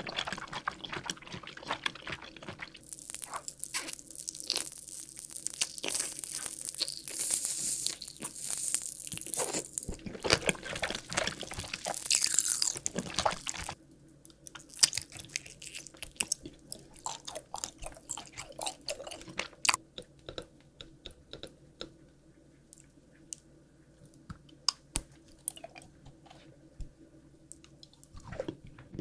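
Close-miked eating of jelly and candy sweets: chewing and crunchy bites. The sound is dense and crackly through the first half, then thins to scattered mouth clicks and smacks.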